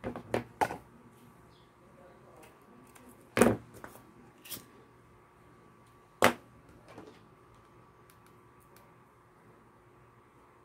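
Handling noise from a ribbon-wrapped plastic headband and craft tools on a tabletop. Three quick clicks come at the start, then single sharp knocks about three and a half and six seconds in, with faint handling in between.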